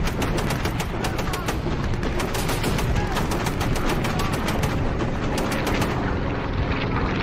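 Shipboard anti-aircraft guns firing a rapid, continuous barrage, several shots a second.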